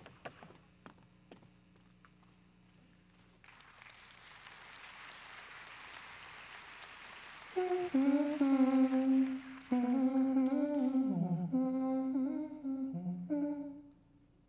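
A voice hums a slow wordless melody in long held notes, phrase by phrase with short breaks, over a soft hiss that swells in beforehand; the first few seconds are quiet apart from a few faint clicks.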